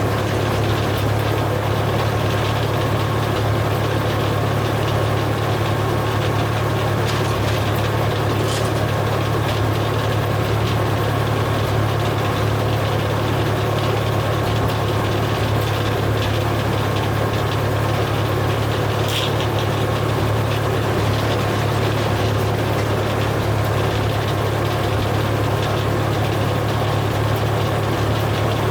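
Engine running steadily at a constant speed, a low, even hum, with two brief sharp clicks.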